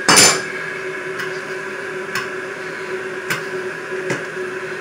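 Metal tool knocking and clicking against toilet fittings while a nut is tightened: one sharp clank at the start, then four lighter clicks about a second apart, over a faint steady hum.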